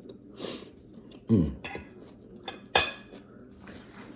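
Eating sounds: dishes and cutlery clinking, with a short falling vocal sound about a third of the way in and a sharp, cough-like burst a little past halfway.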